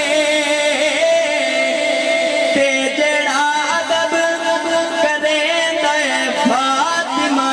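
Male voice singing a naat rubai in long drawn-out notes, the pitch wavering and bending through ornamented runs without clear words.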